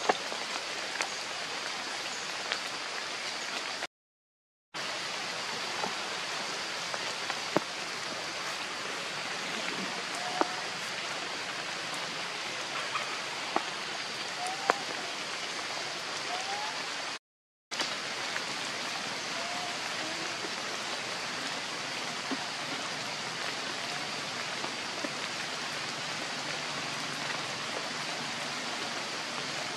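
Steady rain falling in forest, an even hiss with scattered sharp drip ticks. A few short rising chirps come through about a third of the way in, and the sound cuts out twice for a moment.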